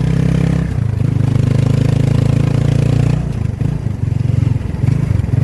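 Motorcycle engine of a Filipino tricycle running steadily under way. About three seconds in, its note turns uneven and choppy for a couple of seconds, then steadies again.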